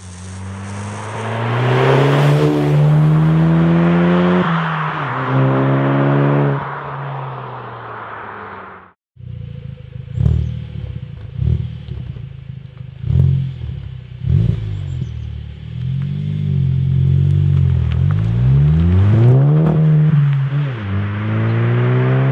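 Engine revving up and down, then, after a brief break, a Skoda Octavia RS 2.0 TSI turbocharged four-cylinder with a Supersprint cat-back exhaust idles and gives several short, sharp throttle blips. It then revs up and back down, and pulls away accelerating.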